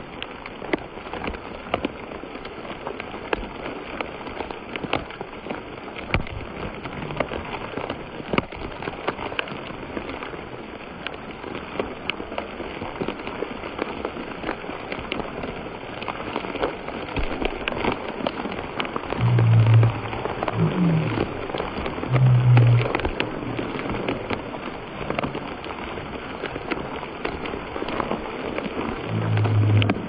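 Waterfall pouring directly onto a person and a close-held camera: a steady rush of falling water, thick with crackling drops and splashes hitting the lens and the pool. A few brief, louder low sounds break in about two-thirds of the way through and again near the end.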